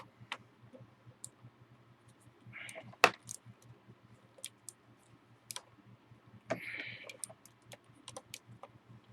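Irregular clicks and taps from handling a mechanical keyboard while pushing its USB cable into the routing channel underneath, with two short scraping rustles and one sharp click about three seconds in, over a low steady hum.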